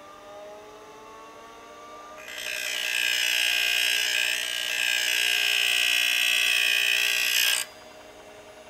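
Seagate ST-238R 5.25-inch hard drive spinning up with a rising whine, then about two seconds in a loud, high-pitched scraping noise sets in and holds for about five seconds before cutting off suddenly. The owner is pretty sure it is the heads scraping on the platters, a head crash.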